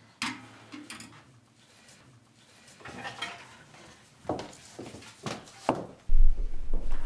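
Metal kitchenware clattering: pots, pans and a brass samovar knocked and handled, a sharp knock just after the start, then a run of clinks and knocks. About six seconds in, a loud low rumble sets in.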